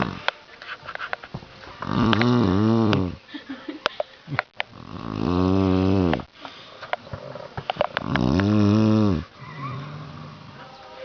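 A sleeping man snoring heavily: three long, loud snores about three seconds apart, each rising and then falling in pitch, with quieter breathing and faint clicks between them.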